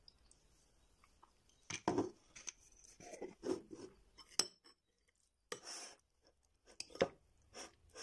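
Irregular clinks, taps and knocks of kitchen utensils against a bowl and containers, starting about a second and a half in, with a short pause around the middle.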